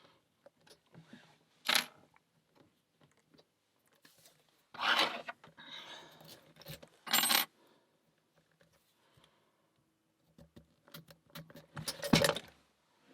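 Master Lock 150 padlock being speedpicked and reset: faint metallic scraping and clicking of picks and tension tool in the keyway, broken by several sharp metal clacks, about 2 s in, around 5 and 7 s, and loudest near the end.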